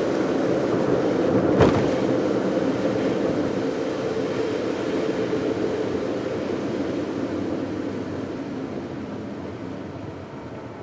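Steady tyre and road noise of a car being driven, easing off as it slows, with one sharp knock about a second and a half in.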